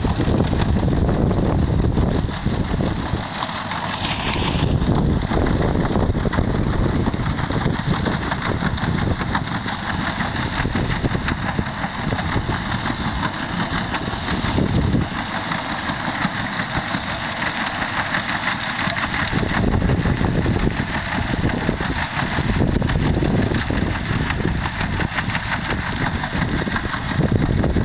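Tractor engine running steadily under load, driving a Bunning Lowlander 150 HD muck spreader whose sludge-cake augers are flinging out biosolids, a dense continuous machine noise.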